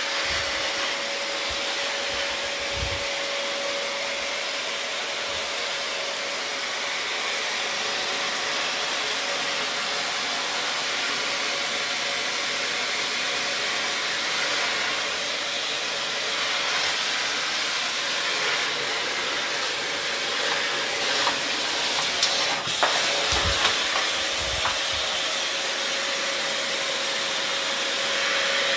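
Vacuum cleaner running steadily: a loud hiss with a constant whine beneath it. A few knocks and clicks come about three-quarters of the way in.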